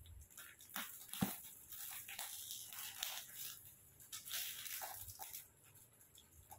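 Scissors snipping and rustling the clear plastic wrap of a rolled foam mattress: faint, scattered crinkles and small clicks.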